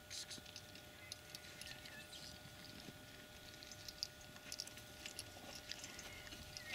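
Faint open-air quiet with scattered light ticks and rustles and a faint steady hum underneath.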